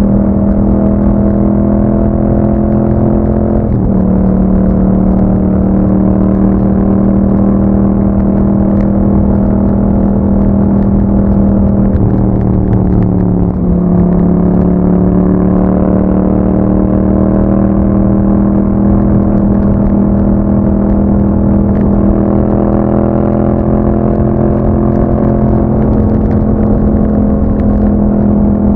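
Yamaha MT-07's 689 cc parallel-twin engine running through an Akrapovic exhaust while riding, its note mostly steady. The pitch drops briefly about 4 seconds in and again about 13 seconds in, then settles.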